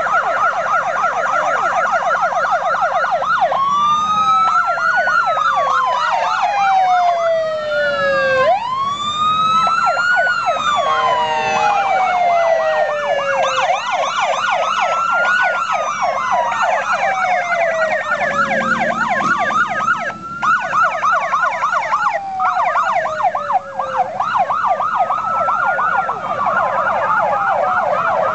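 Several police motorcycle sirens sounding at once: a fast yelp running alongside slow wails that rise and fall over several seconds.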